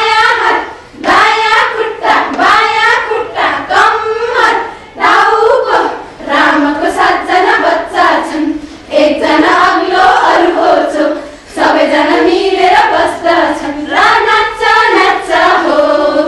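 A group of women singing a Nepali children's action rhyme together, in short repeated phrases with brief breaks between them.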